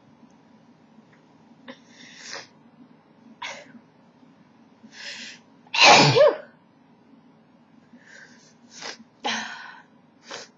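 A woman's single loud sneeze about six seconds in, brought on by tickling her nostril with a cotton swab. Short sharp sniffs and breaths come before and after it.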